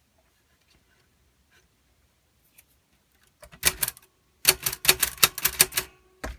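We R Memory Keepers Typecast typewriter keys being struck as test strokes. There are a few clicks, then a quick run of about ten sharp keystrokes, and one last strike near the end.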